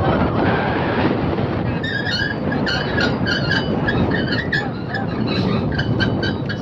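Fishing boat's engine running steadily, with a string of short, high-pitched chirps repeating irregularly from about two seconds in.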